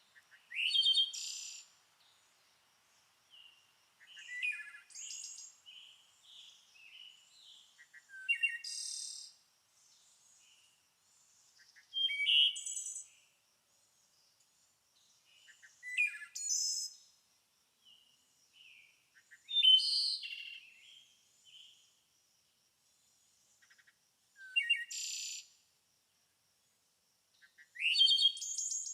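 Songbirds singing. A phrase that opens with a quick rising note and breaks into high chirps comes round about every four seconds, with softer chirps in between.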